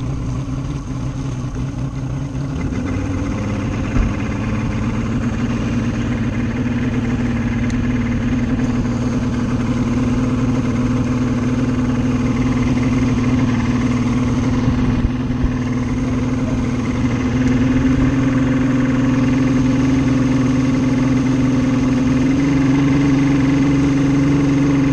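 Boat outboard motor running steadily at trolling speed, its engine note creeping up about three seconds in and stepping up twice more in the second half, with one small knock about four seconds in.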